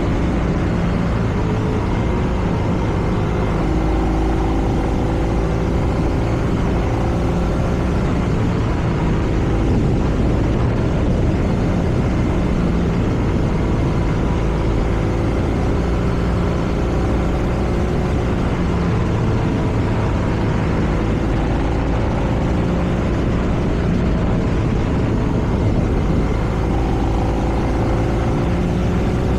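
BMW R nineT's air/oil-cooled boxer twin under way on the road, its exhaust note rising and falling several times as the revs change, over a heavy rush of wind on the microphone.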